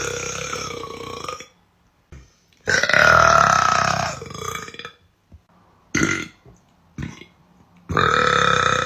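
A woman's long, drawn-out burps: one trails off about a second and a half in, another lasts about two seconds starting a little before the three-second mark, and a third begins about eight seconds in, with two short sounds in between.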